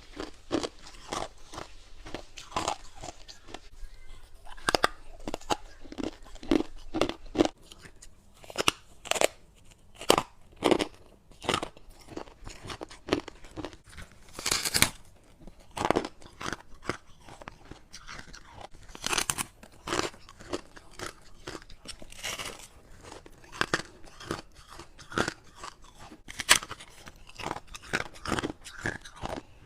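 Ice and freezer frost being bitten and chewed: repeated irregular crunches, with a few louder bites standing out.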